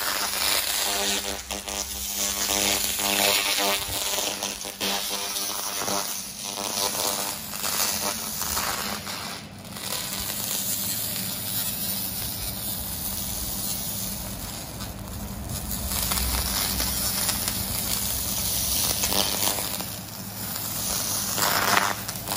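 Handheld fiber laser cleaner with a wobble scan head ablating rust off a steel bar: a steady hiss, with a buzzing tone in the first few seconds.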